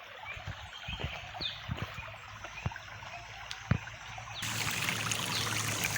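Small mountain stream trickling and running over rocks, starting abruptly about four seconds in and then steady. Before it come scattered knocks and a few short bird chirps.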